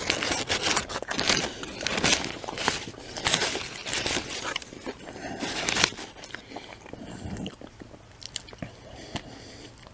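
A person biting and chewing a McDonald's hamburger close to the microphone. The chewing is loudest over the first six seconds, then turns quieter with a few small clicks.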